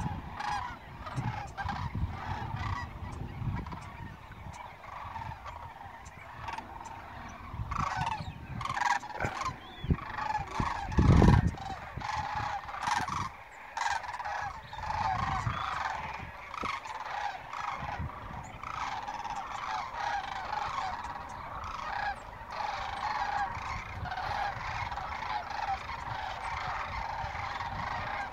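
A large flock of geese flying overhead, many birds honking at once in a continuous chorus. A brief low thump about eleven seconds in is the loudest sound.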